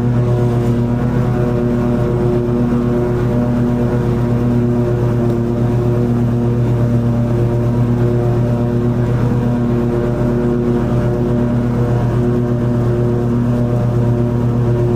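Toro TimeCutter 50-inch zero-turn mower running steadily while mowing long grass. Its engine gives a loud, even drone, and one tone within it swells and fades about once a second.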